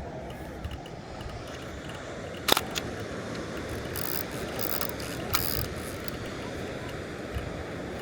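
Kowa Six medium-format film camera firing: one sharp clack of the shutter and mirror about two and a half seconds in, then the film advance being wound with a ratcheting sound for a second or two, with a click partway through. A steady low background hum lies under it.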